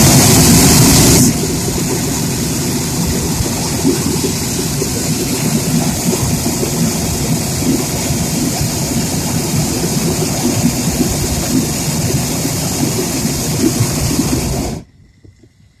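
Hot air balloon's propane burner firing a long burn of about fifteen seconds, loudest in the first two seconds, then a steady roar that cuts off abruptly near the end. The burn heats the envelope to make the balloon climb.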